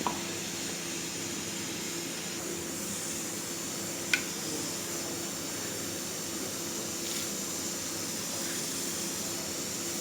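Steady hiss with a faint low hum, and one sharp click about four seconds in.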